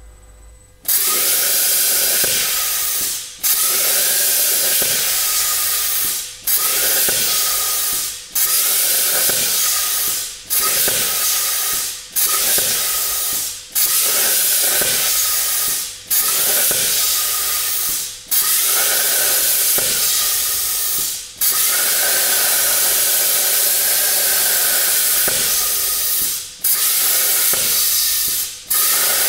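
Hypertherm Powermax plasma cutter torch cutting 4 mm steel pipe: a loud, steady rushing hiss of the arc and cutting air starts about a second in. It drops out briefly about a dozen times, every two to five seconds, and starts again abruptly each time.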